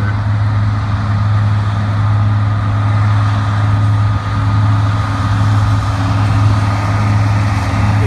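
New Holland combine harvester running while harvesting soybeans: a steady low engine drone with a faint, steady whine above it.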